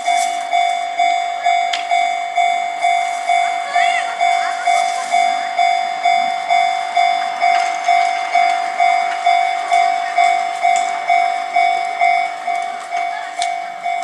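Japanese railway level crossing alarm sounding its bell tone over and over, a little over twice a second at a steady pitch. It warns that a train is approaching while the barrier arms come down.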